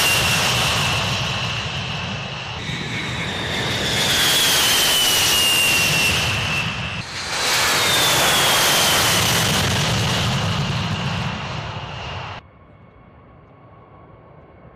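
B-52 bombers' eight jet engines at takeoff power going past close by: loud jet noise with a high whine that falls in pitch as each aircraft passes. There are three passes, the second starting about two and a half seconds in and the third about seven seconds in. The noise cuts off abruptly about twelve seconds in, leaving a faint steady rumble.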